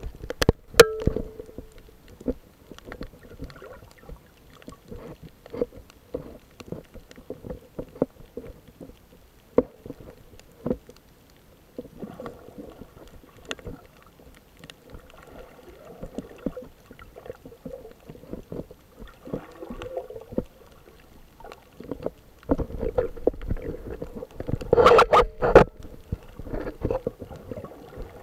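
Muffled water sloshing and gurgling around a camera in the sea, with many irregular clicks and knocks and a louder cluster of knocks a little before the end.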